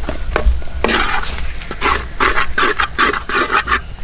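A ladle stirring and scraping onion-tomato masala as it fries in oil in a clay pot (mannuruli). The strokes come quicker in the second half, about three a second.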